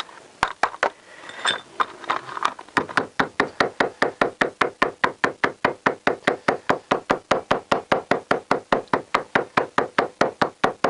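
Small toffee hammer tapping quickly round the edge of a card gasket blank held on the part by bolts, cutting the gasket outline through the card. A few scattered taps at first, then a steady run of about five taps a second.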